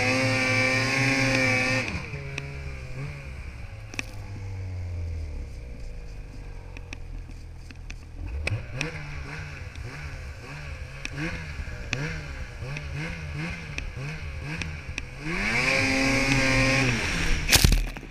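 Snowmobile engine running at high revs, dropping off about two seconds in and running low, then blipped up and down in quick repeated rises and falls, before revving high again near the end. A brief, very loud blast of noise comes just before the end.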